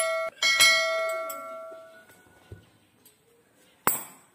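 A set of steel L-shaped hex keys clanging, ringing out twice with a bell-like tone that dies away over about a second and a half. A single sharp knock follows near the end.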